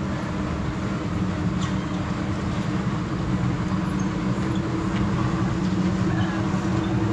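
Small engine of a vintage-style ride car running steadily at idle, a low even hum that grows a little louder in the second half.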